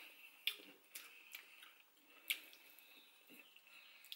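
A person chewing oxtail meat off the bone, heard close up as faint chewing with a handful of sharp wet mouth clicks and lip smacks, the loudest about halfway through.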